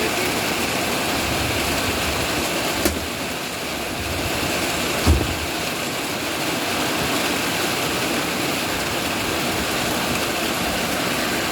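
Rain pouring down steadily, with two brief knocks about three and five seconds in.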